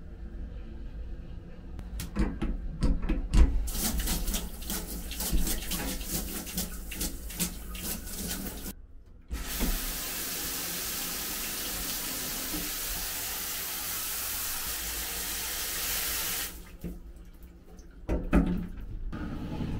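Shower running: water spraying unevenly with many knocks and splashes for several seconds, then a steady even spray for about seven seconds that cuts off suddenly. A few knocks follow near the end.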